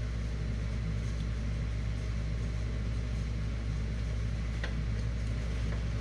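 Steady low hum, with a faint single click about four and a half seconds in.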